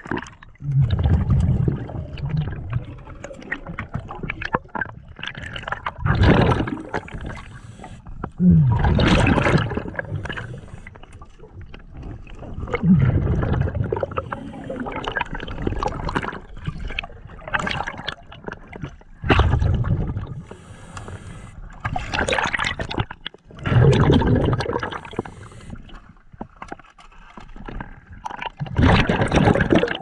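Scuba regulator underwater: the diver's exhaled air bubbles out in loud gurgling bursts every three to five seconds, with quieter gurgling between.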